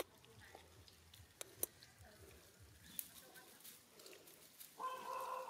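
Faint scattered crackles of dry leaves as a newborn macaque crawls over them. Near the end a steady, even-pitched whine starts and holds.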